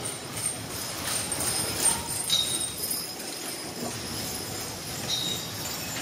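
A draft-horse team and wagon passing close: metal harness fittings jingling and clinking, with a short high squeak twice, about three seconds apart.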